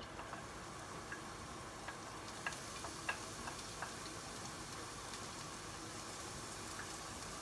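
Chopped garlic and onion sizzling in hot cooking oil in a pan, a steady hiss with scattered small crackles and pops.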